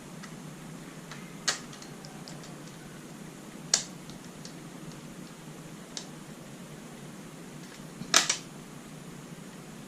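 Sharp clicks and taps of small hard laptop parts being handled during disassembly: four separate clicks, the last a quick double click and the loudest, with a few faint ticks between, over a steady low hum.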